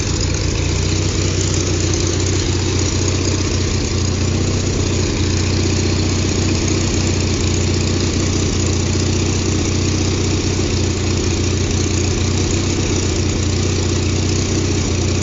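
The engine of a hydraulic lifting machine running steadily at idle: a low, even hum that holds without change.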